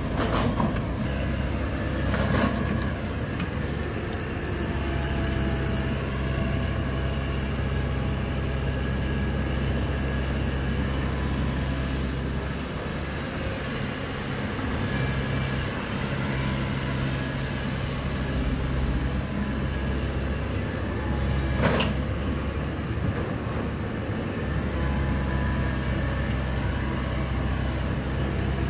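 Komatsu PC195LC hydraulic excavator's diesel engine running steadily under load as the machine digs and swings to load a dump truck, with a few sharp knocks, the loudest about three quarters of the way through.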